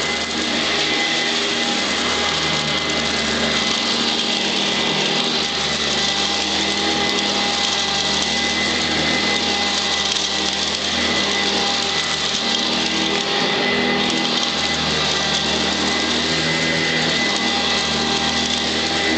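Eureka ESP direct-air commercial upright vacuum cleaner running steadily, its motor whine holding an even pitch.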